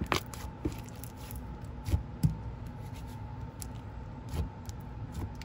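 Hands stretching and squishing a thick, clay-based avalanche slime, giving scattered small clicks and pops, with a few sharper ones about two seconds in.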